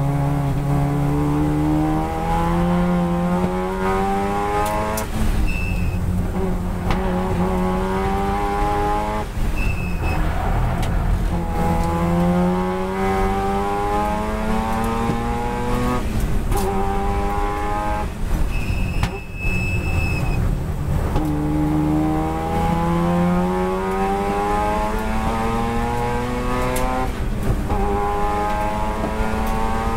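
Turbocharged twin-rotor 13B rotary engine of a race-prepared Mazda RX-7 FD3S heard from inside the cockpit, pulling hard with its pitch climbing and dropping back at each of several upshifts. A short high whistle comes at some of the gear changes.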